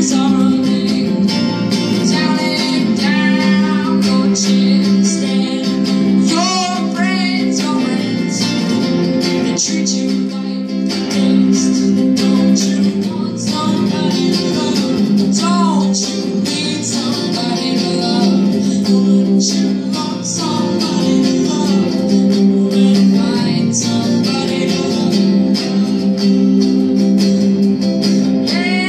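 Electric guitar played live through an amplifier: a lead passage of bent, wavering notes over steady sustained low notes.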